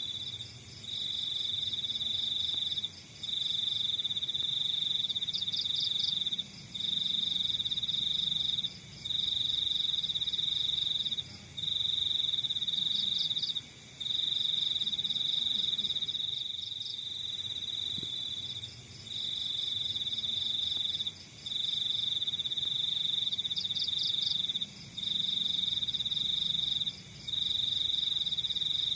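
Cricket trilling in long, steady, high-pitched bursts of about two seconds each, with short breaks between them, over a fainter, rapidly pulsed chirping.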